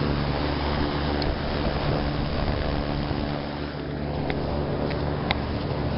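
Trane packaged gas/electric rooftop-style units (gas packs) running: a steady machine hum with even fan noise. A few light clicks come in the second half.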